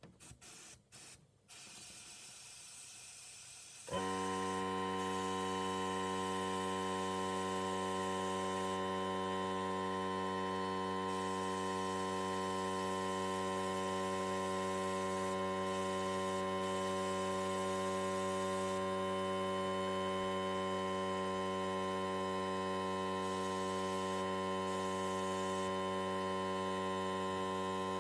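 Sandblasting equipment starting up: about four seconds in a steady electrical hum comes on suddenly and holds, with the hiss of compressed air and abrasive from the blast gun over it, the hiss easing briefly a few times.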